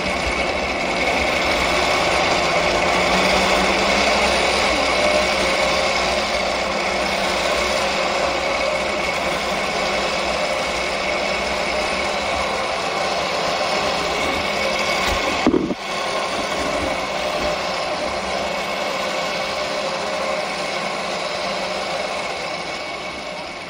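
Zipline trolley's pulley wheels running at speed along the steel cable: a steady, loud whirring rattle with a thin whine in it. It breaks off for an instant about two-thirds of the way through, then carries on and fades near the end.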